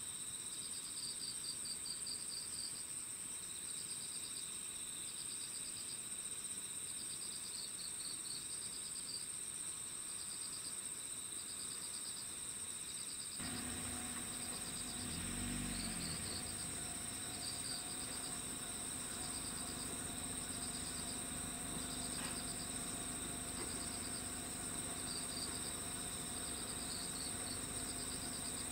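Crickets and other insects chirping in repeated pulsed trills over a steady high insect drone. About halfway through, a low steady hum joins them: a diesel railcar running at the station as two trains cross each other.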